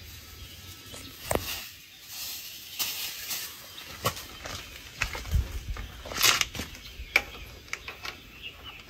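Hands working on a parked motorcycle with its engine off: scattered clicks and light knocks of handled parts, mixed with stretches of rustling like a plastic bag being handled. The sharpest clicks come about a second in and again near six and seven seconds.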